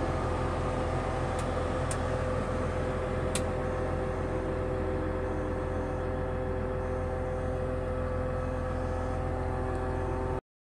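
Komatsu forwarder's diesel engine running steadily, heard from inside the cab, with a few brief clicks in the first few seconds. The sound cuts off suddenly near the end.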